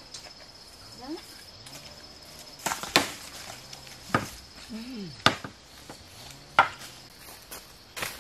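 A hoe chopping into the ground among bamboo roots, about four sharp strikes roughly a second and a half apart. A steady high insect whine runs underneath and stops about halfway through.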